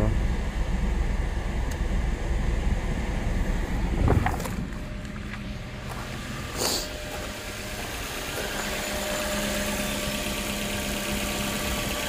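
2011 Suzuki SX4's 2.0-litre four-cylinder engine idling with the air conditioning switched on, first heard as a low rumble from inside the car. A car door thumps shut about four seconds in. Later the engine is heard through the open hood as a steadier hum that slowly grows louder.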